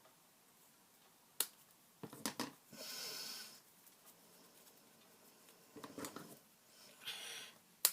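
Scissors snipping card: a sharp snip about one and a half seconds in, a few more around two seconds and again near six seconds, with short rustles of paper being handled in between.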